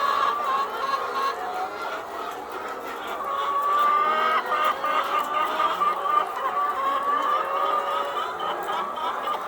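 Many caged laying hens clucking and calling together, their voices overlapping in a steady din.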